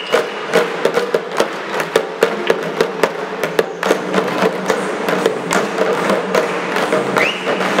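Ensemble of parai frame drums beaten with sticks in a fast, dense rhythm. A whistle blast rises and holds near the end.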